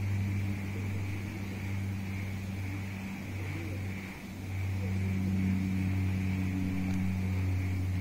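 A steady low machine hum with a fainter, higher hiss above it. It eases off briefly about four seconds in, then comes back a little louder.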